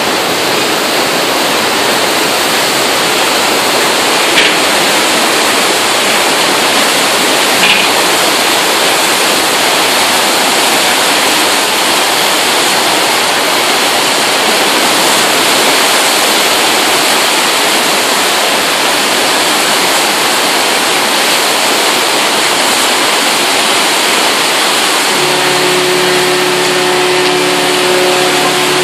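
Loud, steady rush of churning water from the S.S. Badger's propeller wash as the carferry pulls away from the dock. Two short knocks come in the first eight seconds, and a low steady hum with a few pitched tones joins near the end.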